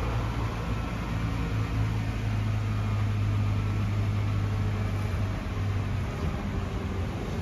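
Nissan GT-R's 3.8-litre twin-turbo V6 (VR38DETT) idling: a steady low drone, a little stronger through the middle few seconds.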